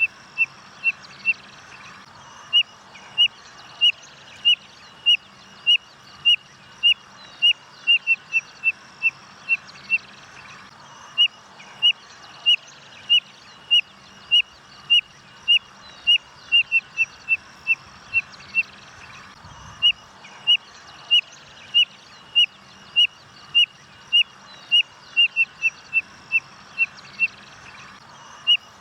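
Codorna-amarela (spotted nothura, Nothura maculosa) calling: a long series of short, high whistled notes, each dropping slightly in pitch, repeated about once a second with quicker runs now and then and a short pause about two-thirds of the way through.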